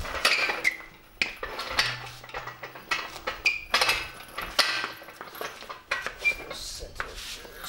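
Metal hand tools and parts clinking and clattering against each other during engine work: an irregular run of sharp clinks and knocks, some ringing briefly.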